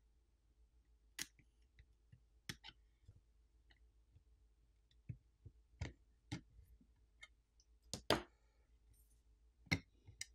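Scattered sharp clicks and taps of a metal tool and a pry tool working against a smartphone's frame and aluminium midframe, about ten in all, with the loudest pair around eight seconds in.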